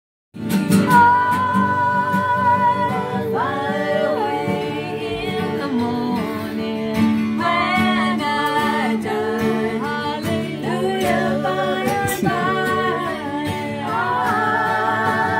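People singing together to strummed acoustic guitars, played live.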